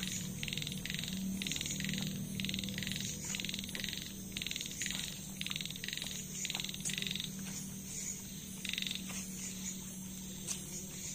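A frog calling in a steady rhythm, short pulsed calls about one and a half a second, which stop about nine seconds in. Underneath is a steady low hum, with a few light clicks of utensils on plastic plates.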